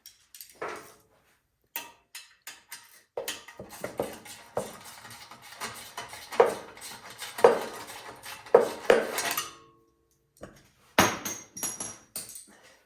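Metal clinking and clanking as hand tools and the snowblower's sheet-metal engine cover are worked loose, a busy run of small clicks with several louder ringing knocks in the middle and another cluster near the end.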